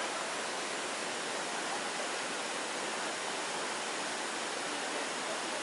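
Steady rushing roar of the Datanla waterfall, an even hiss of falling water with no breaks.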